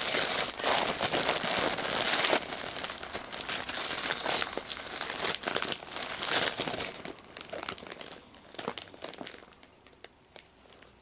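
Gift wrapping paper being torn and crumpled as a present is unwrapped: dense crackling for about the first seven seconds, then thinning to occasional quieter rustles.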